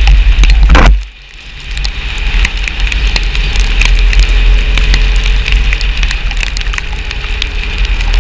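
Wind rushing and buffeting over the microphone of a motorcycle riding in the rain, with many small ticks of raindrops. The rush drops off sharply about a second in, then builds back up.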